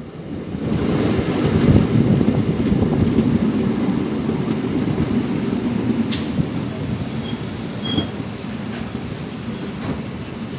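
Passenger train running on the track: a steady rumble of wheels and coaches that swells over the first couple of seconds, with a single sharp clank about six seconds in.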